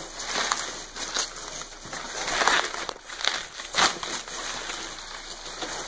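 Pink plastic bubble wrap crinkling as it is pulled off an instrument cluster by hand: an uneven run of crinkles, loudest about two and a half and nearly four seconds in.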